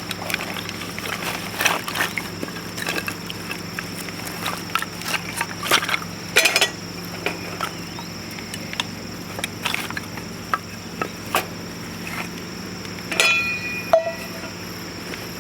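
Irregular sharp snaps and crackles of burning or handled dry wood at a wood-burning camp stove, with a short ringing metallic clink about 13 seconds in.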